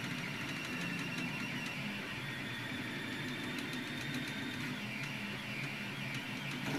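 Anycubic Kossel delta 3D printer printing, its stepper motors whining in steady tones that shift in pitch every second or so as the moves change.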